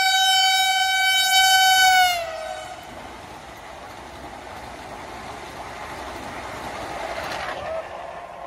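Vande Bharat Express electric trainset sounding a long single-tone horn whose pitch drops about two seconds in as the front passes at speed, then the steady rush of its coaches going by, growing louder before cutting off suddenly near the end.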